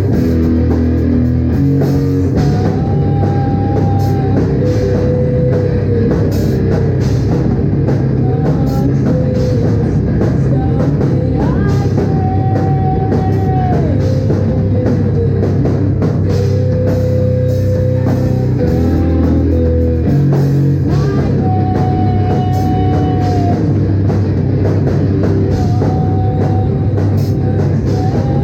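Live rock band playing loud: drums, bass and distorted guitars, with a melody of long held high notes that comes back every few seconds.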